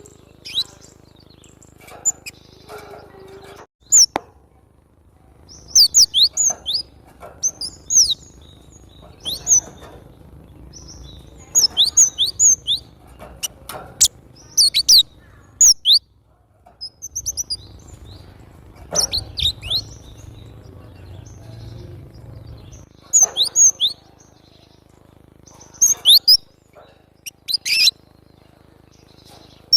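Gelatik batu (cinereous tit) singing: short bursts of quick, sharp, high chirps, repeated every second or two with brief pauses between phrases.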